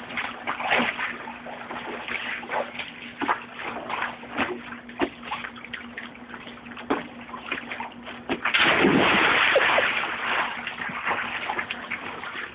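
Pool water sloshing with small splashes, then about eight and a half seconds in a big splash of a person jumping into a swimming pool, with water spattering and sloshing for about two seconds after.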